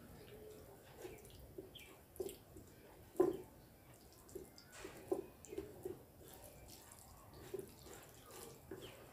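Faint, irregular wet clicks and smacks of eating by hand: rice being squished and mixed with egg curry on a steel plate, and chewing. The sharpest click comes about three seconds in.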